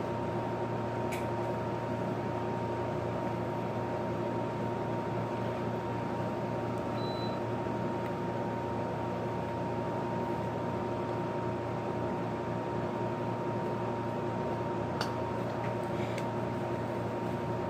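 Steady mechanical hum of a household appliance or fan, with several fixed tones, and a few faint clicks.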